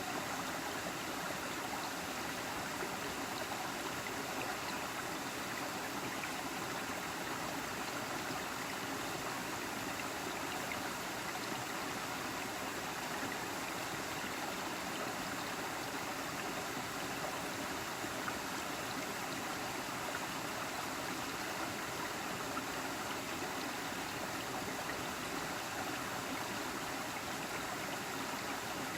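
Waterfall rushing and splashing steadily, an unbroken hiss of falling water.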